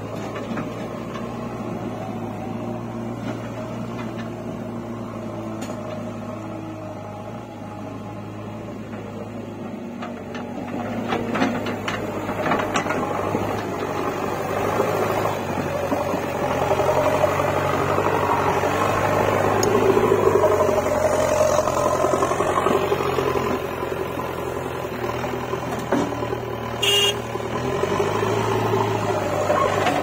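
JCB 3DX backhoe loader's diesel engine running, working harder from about a third of the way in as the front bucket digs and lifts a load of soil, with a few clanks. A brief high squeal near the end.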